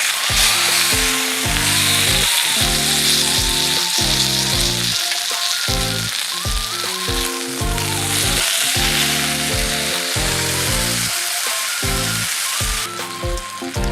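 Food sizzling and frying in a hot pan, a steady hiss that eases off near the end. Background music with a simple stepping melody plays under it.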